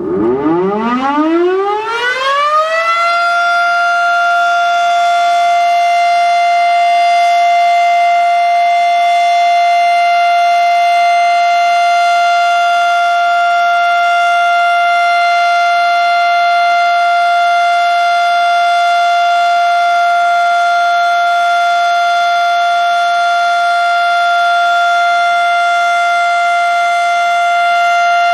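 Federal Signal Model 7 outdoor warning siren winding up, its pitch rising over the first few seconds, then holding one steady tone. This is the steady 'alert' signal of a monthly tornado siren test.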